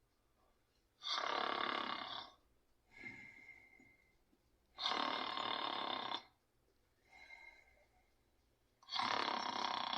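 Cartoon snoring: three long snores about four seconds apart, each followed by a shorter, quieter breath out with a thin whistle.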